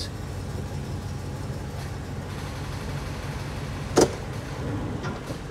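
Ford F450 delivery truck's engine idling steadily while the column shifter is worked through the gears, with one sharp click about four seconds in.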